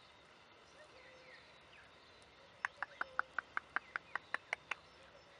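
Kākā parrot at close range making a quick, even run of about a dozen sharp clicks, about five a second, starting about halfway in. Faint bird chirps can be heard in the background.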